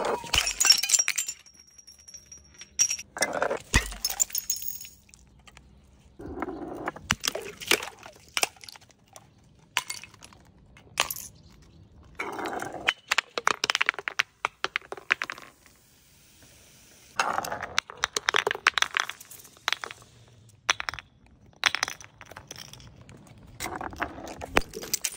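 Glass bottles tumbling down stone steps and smashing, with glass shards clinking and skittering across the stairs. About eight separate runs of clattering and crashing, spaced a few seconds apart.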